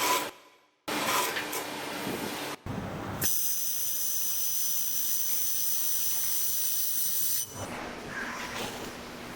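Handheld laser welding machine at work: a steady hiss with a faint high whine. It breaks off abruptly several times, and after a sudden change near the end it continues as a quieter, lower hiss.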